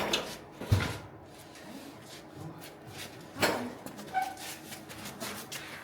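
Scattered knocks and clunks from hand work on a car's front-end sheet metal. There is a sharp knock just under a second in and a louder one about three and a half seconds in, with lighter clicks between.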